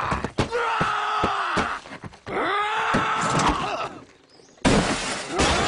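A cartoon boy screaming and wailing in a tantrum, two long bending cries, with several sharp thumps during the first cry. About four and a half seconds in comes a loud burst of noise.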